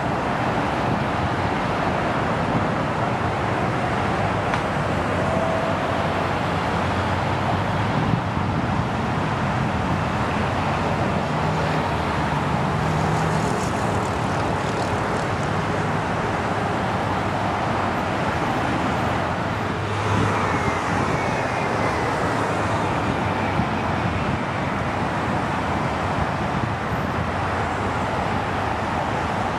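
Steady roar of twin-engine jet airliners landing and slowing on the runway, with a faint falling whine about twenty seconds in.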